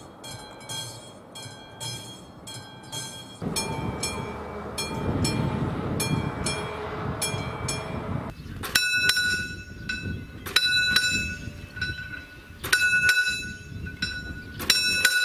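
Railway level crossing warning bells ringing in quick, regular strikes, about three a second. From about three seconds in, a passing train's rumble swells under the fainter bell. Near the middle it changes abruptly to a louder, brighter-toned crossing bell striking in short groups.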